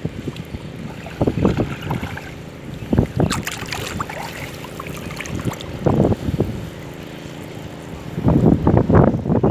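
Water splashing and sloshing as a cast net is gathered and lifted by hand from waist-deep lake water, in irregular bursts that come thickest near the end, over wind on the microphone.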